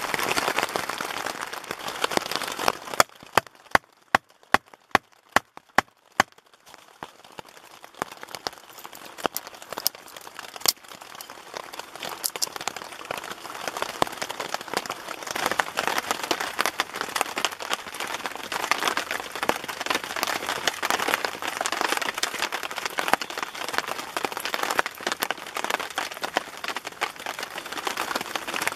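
Rain falling on a tent or tarp shelter, heard as a dense crackling hiss. About three seconds in it gives way to a run of roughly ten sharp knocks over three seconds. The rain then builds back.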